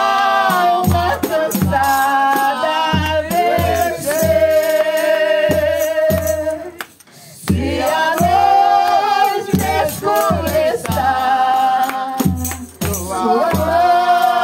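A woman singing a gospel hymn through a microphone and loudspeaker in long held notes, over a backing track with a steady bass beat and shaker percussion. The singing breaks off briefly about seven seconds in, then resumes.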